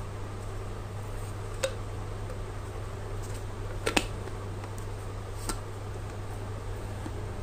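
Light clicks and taps of a glass French press being put back together, as its metal mesh plunger and plastic lid knock against the glass beaker, the loudest a double click about four seconds in. A steady low hum runs underneath.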